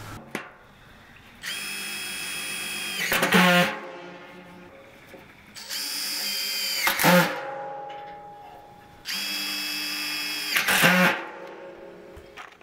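Cordless drill-driver running three times, about two seconds each, driving screws into the seam of a sheet-steel drum. Each run is a steady whine that ends in a brief, louder rattle.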